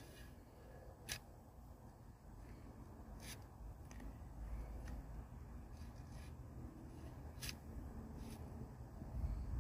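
Shovel blade cutting into grassy soil at the base of a wooden mailbox post: faint scraping with a few sharp crunches, about four in all, as the blade bites through turf and roots.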